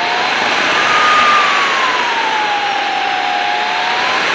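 Radio-controlled model jet's engine running on the ground, heard up close: a steady rushing noise with a whine that slowly rises and falls in pitch, topped by a very high whistle.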